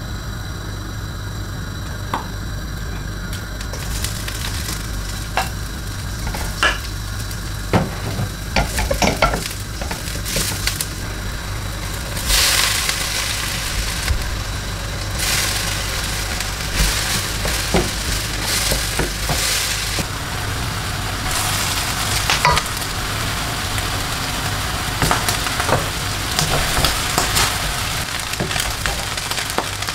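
Vegetables and then rice sizzling as they are stir-fried in a hot stainless steel wok on a gas burner. The hiss builds from about four seconds in, and a wooden spatula scrapes and knocks against the pan many times.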